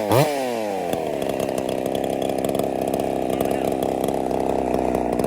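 Ported Husqvarna 50 two-stroke chainsaw, fitted with a Partner 5000 top end, running at high revs. Its pitch jumps up and falls back in the first second, then holds steady at high speed.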